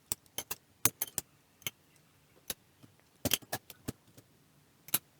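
Irregular sharp clicks and light knocks as a small industrial camera is handled and worked into place under a microscope. There is a quick cluster of clicks a little past three seconds and a louder knock near the end.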